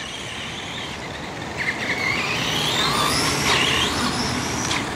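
Electric RC car's motor and drivetrain whining, the pitch rising and falling with the throttle, over tyre hiss on asphalt.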